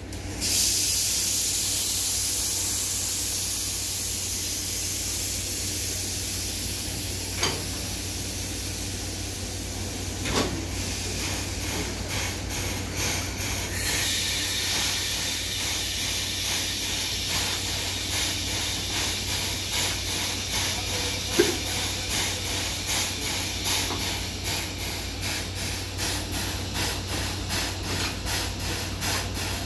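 Train air brake line hissing loudly as the brake hoses between coach and brake van are coupled; it starts suddenly, eases slowly, and takes on a steady pulsing about halfway through. A few sharp metal clinks are heard during the coupling work.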